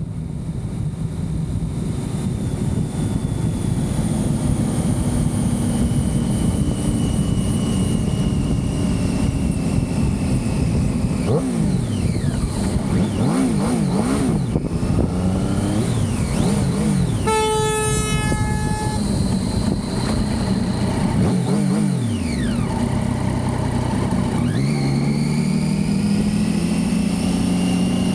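Triumph Street Triple's three-cylinder engine running under way, the revs rising and falling as it accelerates and eases off. A horn sounds briefly about two thirds of the way through.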